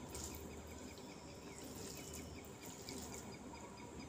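Cooked rice being squeezed and mixed by hand with sambar on a banana leaf: soft, faint wet squishing in a few short spells, with a faint regular chirping behind it.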